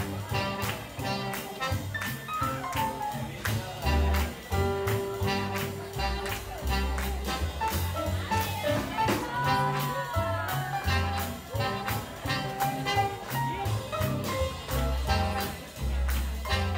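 Live swing jazz band playing a tune with brass over a steady beat of drums and bass.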